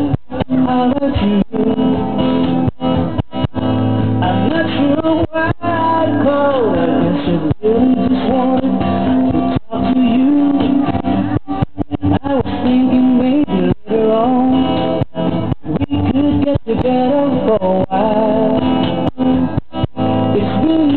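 A song with singing over guitar accompaniment, the sound cutting out for an instant many times throughout.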